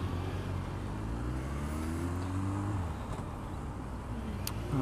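Motorcycle engine accelerating, its note rising for about two seconds and then dropping off about halfway through as the throttle eases or the gear changes, over a steady rush of riding noise. A single sharp click near the end.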